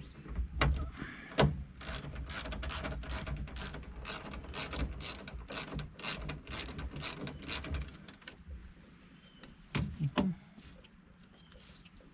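Ratchet wrench clicking in a steady run, about three clicks a second, as it backs off a 10 mm nut, stopping about eight seconds in. A couple of knocks follow near ten seconds in.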